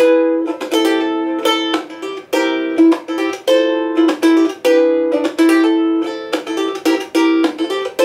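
A soprano thin-body ukulele with a spruce top and mahogany back and sides, strummed in a quick rhythmic chord pattern with some chords left ringing. It has a full, resonant ring for so small a body.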